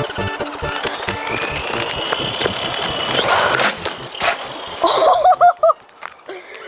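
RC buggy's electric motor whining, rising in pitch as it speeds up for about three seconds, then a short loud burst. About a second later a sharp knock comes as the buggy lands from a ramp jump, followed by a brief voiced exclamation.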